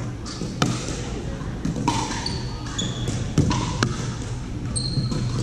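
Pickleball rally: paddles striking a plastic pickleball with several sharp pops, the first about half a second in as the serve is hit. Short high squeaks of shoes on the hardwood floor come in between.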